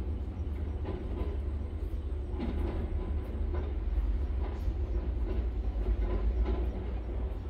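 Puppies nursing, making soft, irregular suckling smacks a few times a second over a steady low rumble.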